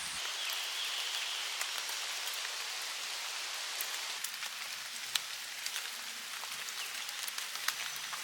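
Rainwater falling in a forest: a steady hiss of drops with scattered sharper single drop strikes, a few of them louder about five and eight seconds in.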